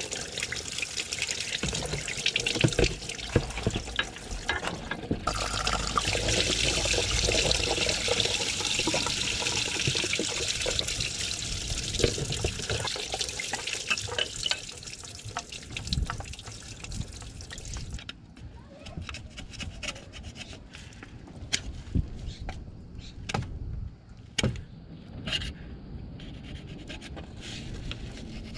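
Metal tools knocking and scraping as the water pump is prised and pulled off a Citroën C3 Picasso 1.6 HDi diesel engine, over a steady watery hiss that cuts off abruptly about two-thirds of the way through. After that come only scattered sharp clicks and scrapes of tools at the pump's mounting face on the engine block.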